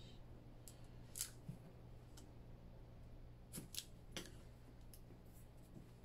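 Faint handling sounds of adhesive tape and a thin clear plastic sheet being pressed down by hand: a few short, sharp crackles and clicks over a quiet low hum.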